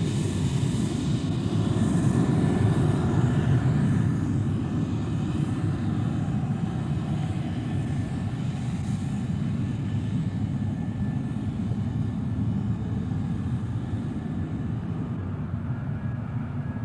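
Outdoor airport ambience: the steady low rumble of an airplane's engines, with a faint high hiss, slowly fading away.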